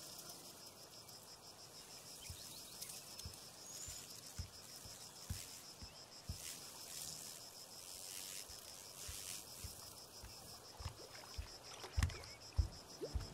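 Faint steady chirring of insects, a continuous high trill, with scattered soft low thumps that come more often near the end.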